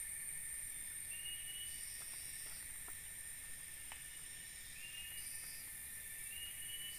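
Tropical forest ambience: a steady high-pitched insect drone, with a short high chirp about a second in and two more near the end.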